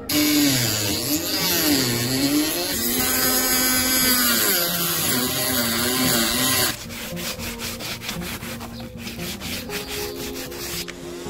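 Handheld electric rotary tool with a thin cutoff disc cutting a slot along PVC pipe, its motor pitch dipping and recovering as the disc bites. It stops suddenly about two-thirds of the way through, and quieter rubbing follows as the cut pipe is sanded by hand.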